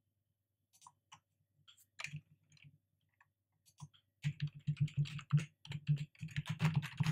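Computer keyboard typing: a few scattered clicks and keystrokes, then a quick, dense run of typing starting about four seconds in.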